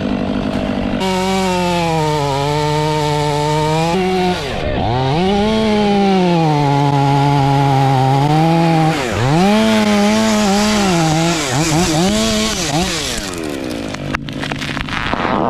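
Husqvarna 500i two-stroke chainsaw with a 32-inch bar cutting through white oak at full throttle, its engine note repeatedly sagging and recovering as the long bar loads in the back cut. Near the end the engine note drops away and a few sharp cracks follow.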